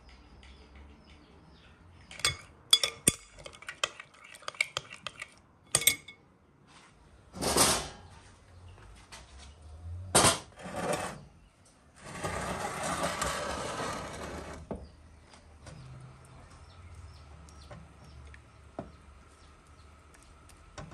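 A metal spoon clinking and scraping against a glass bowl as a thick sauce is stirred, in a quick run of sharp clinks. Later come two louder knocks and a steady scrape of about two and a half seconds.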